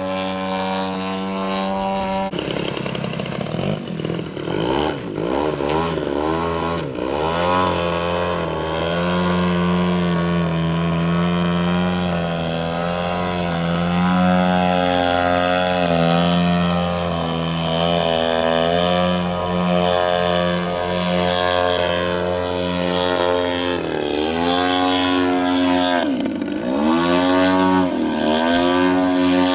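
Engine of a radio-controlled aerobatic model airplane in flight. Its pitch keeps rising and falling, with deep swoops down and back up near the end.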